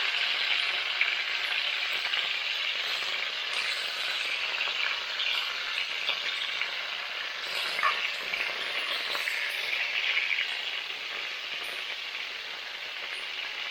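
Chicken frying in hot oil in a pan: a steady sizzle with occasional crackling pops.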